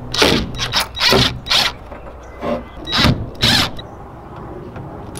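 Ridgid cordless drill run in a string of short trigger bursts, drilling into the aluminum rail of a jon boat. The bursts stop about three and a half seconds in.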